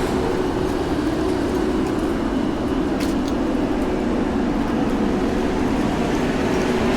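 City street traffic: a steady rumble of motor vehicles with a constant engine hum under it, and one sharp click about three seconds in.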